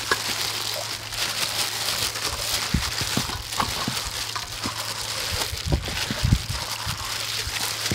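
Plastic-gloved hands rubbing marinade into whole raw chickens in a steel basin: a wet squelching and plastic crinkling with scattered soft knocks, over a steady low hum.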